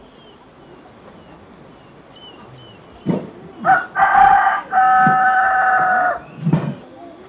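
Rooster crowing: one loud cock-a-doodle-doo starting about three seconds in, rising through short opening notes into a long held final note.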